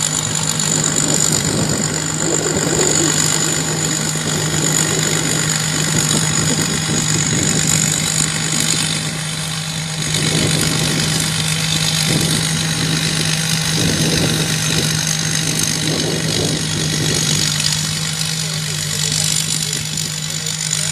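Thai Charoen Kan Chang combine harvester running steadily, with a high steady whine over the engine note and uneven surges of rumble as it works.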